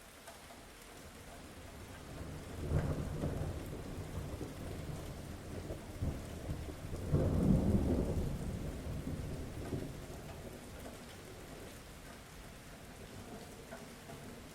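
Steady rain falling, with two low rolls of thunder: one about three seconds in and a louder one around seven seconds, which slowly rumbles away.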